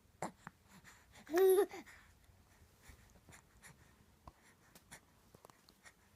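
Newborn baby giving one short squeaky vocal sound, about half a second long, about a second and a half in, its pitch rising then dipping. A brief sharp breath-like squeak comes just before it, and small soft clicks and snuffles follow.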